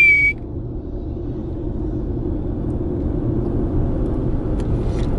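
Steady low road rumble of a car driving at speed, heard from inside the cabin. A whistled note cuts off just at the start.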